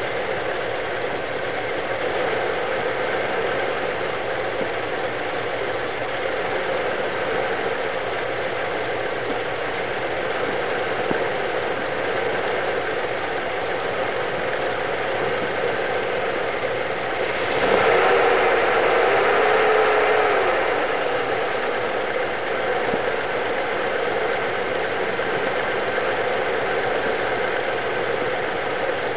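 1972 Dodge W200's 318 V8 idling, which the owner suspects has a vacuum leak causing an erratic idle. A little past halfway it gets louder for about three seconds, with a whine that wavers in pitch.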